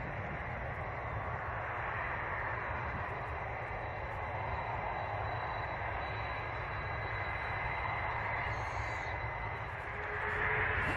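Boeing 747 jet engines running steadily in a flight simulator, with a faint high whine. Near the end the whine starts to rise and the engine noise grows louder.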